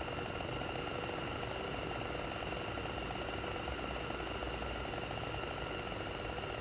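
Mr. Heater propane cone heater burning steadily: a constant burner hiss with a fast, fine fluttering in it.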